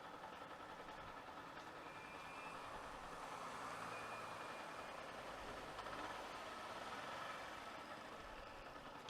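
Faint, steady vehicle engine noise: a low hum of motor traffic.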